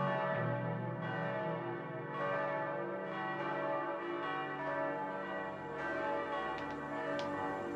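Church bells ringing, with new strikes every second or two whose long tones overlap and ring on. A few faint clicks come near the end.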